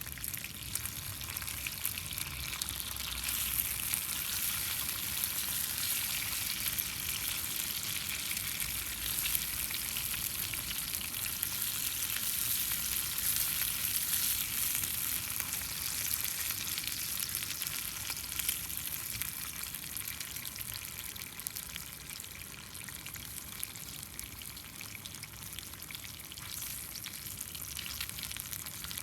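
Food frying in a pan over a small wood fire: a dense, steady sizzle full of fine crackles. It grows louder a few seconds in and eases a little past the two-thirds mark.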